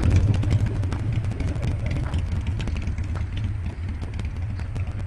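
Road traffic going by: a steady low rumble that gradually fades, with light clicks and rustles from a phone camera carried along at walking pace.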